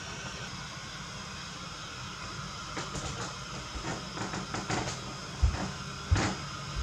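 Gas burner hissing steadily under a wok being seasoned, with scattered light clicks and ticks from about three seconds in and two low knocks near the end.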